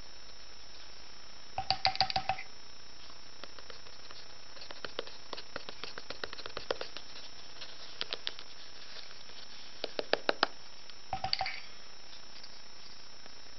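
Pen nib scratching across paper in several short bursts of quick, scratchy ticks, two of them with a brief squeak.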